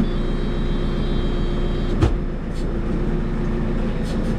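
JCB 3CX backhoe loader's diesel engine running steadily as the machine drives, with a single sharp knock about two seconds in.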